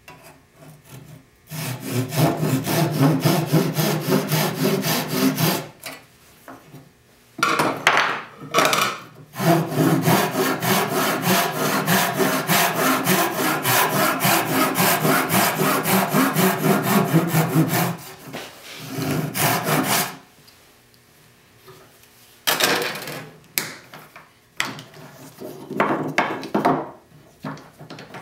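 Japanese pull saw (Gyokucho RazorSaw) ripping down a tenon cheek in a block of Sipo (African mahogany), rapid rhythmic saw strokes in several runs with short pauses between, the longest lasting about eight seconds.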